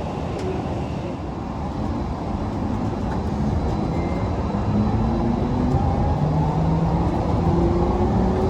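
DFW Skylink automated people-mover train running, a steady rumble with a motor whine that rises slowly in pitch as the train gathers speed.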